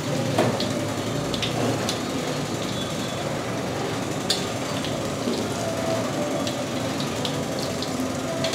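Oil sizzling steadily in a large kadai as chana dal fries toward light golden brown, with a spatula scraping and tapping the pan a few times.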